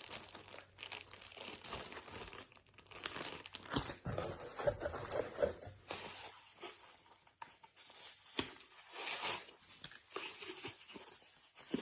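Packaging being crinkled and torn open while shower head parts are unpacked: irregular rustling with a few sharp knocks from parts being handled.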